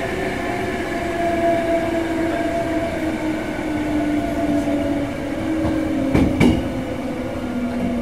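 Interior running sound of a Hankyu 6300 series electric train: rumble from the wheels, with traction motor and gear whine slowly falling in pitch as the train slows. About six seconds in, a quick double clack as the wheels pass over a rail joint.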